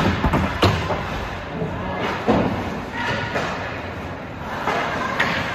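A few sharp thuds and knocks, one every second or two, over a steady din of voices in a large, echoing hall.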